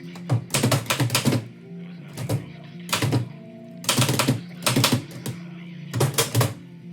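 1918 Oliver typewriter being typed on in short runs of quick, sharp keystrikes, about six runs with pauses between. Background music with a steady low drone plays underneath.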